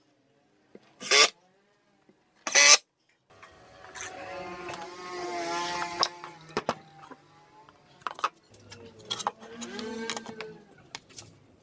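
Cordless drill-driver driving screws into plywood in two short bursts within the first three seconds. After that comes a quieter stretch of wavering tones and sharp clicks.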